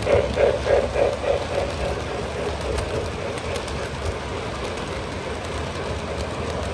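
O gauge model train running on its track: a rhythmic pulsing of about four beats a second for the first second and a half, then a steady rumble of wheels on rail.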